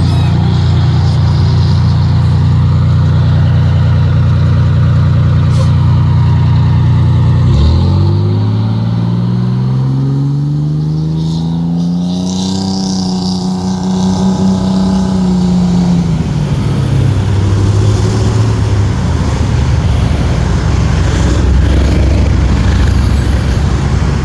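Large diesel fire-truck engine running steadily, then about a third of the way in it revs up in a smooth rising climb as the truck pulls away, holds high for a few seconds, and drops back to a lower steady pitch.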